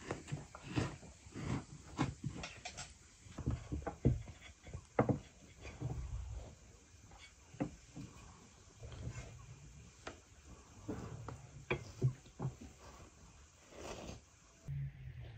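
A knife cutting through a whole meat-stuffed cabbage, with irregular clicks and taps of the blade against the plate.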